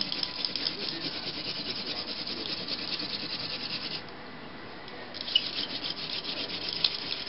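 Hand-drill friction fire: a plant-stalk spindle is spun back and forth between the palms, grinding into a white pine hearth board with a fast, rhythmic rasp. The rasp stops for about a second around the middle, then starts again.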